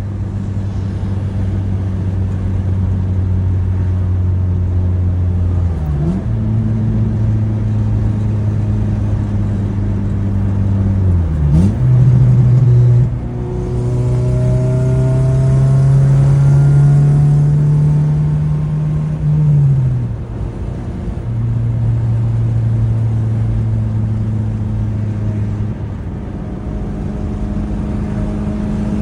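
2004 Honda Civic Si's 2.0-litre four-cylinder engine under way on the road, its pitch dipping and jumping at gear changes about 6 and 11 seconds in, climbing steadily under acceleration, then dropping again about two-thirds of the way through.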